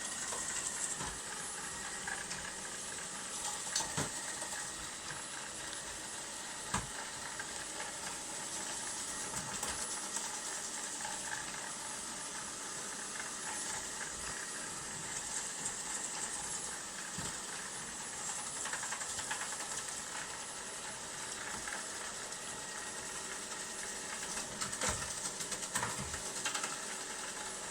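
ILIFE V50 Pro robot vacuum running steadily, its suction fan hissing along with a faint motor hum, with a few sharp knocks as it works close against an obstacle.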